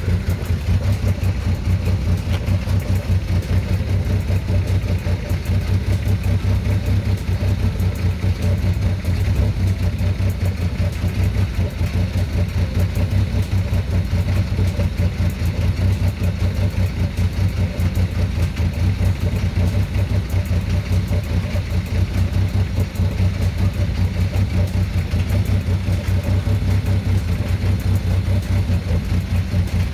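A 1995 Ford's engine idling steadily with a fast, even pulse, run just after an oil change to circulate the fresh oil.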